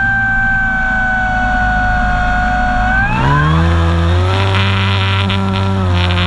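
Radio-controlled model airplane's motor and propeller, heard from a camera on board: a steady whine sinking slightly in pitch, then about three seconds in it rises quickly as the throttle is opened and settles into a steady, higher buzz, dropping a little near the end.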